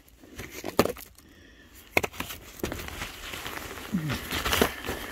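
Plastic vapor barrier sheeting crinkling and rustling as someone crawls across it, with scattered sharp crackles.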